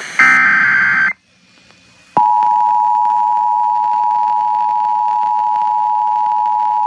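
The last burst of an Emergency Alert System header's digital data tones, a harsh warbling screech about a second long, then a second of quiet. About two seconds in, the steady two-tone EAS attention signal starts and holds, announcing a tornado warning.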